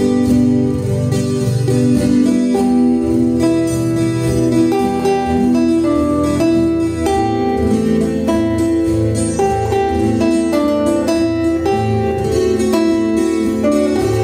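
Background guitar music: a plucked guitar melody over chords, steady throughout.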